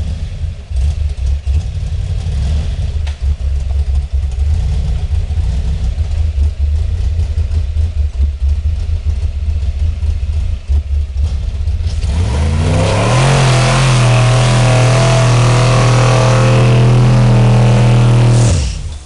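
Off-road truck engine rumbling at low revs under load, then about twelve seconds in it revs up in a rising whine to high revs and holds there for several seconds before dropping off suddenly near the end.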